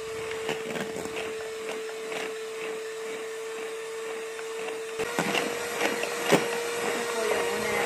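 Electric hand mixer running steadily, beating egg whites for boiled icing, its motor whining at one steady pitch while the beaters tick against the stainless steel bowl. About five seconds in, the pitch steps slightly higher and the ticking grows louder and more frequent.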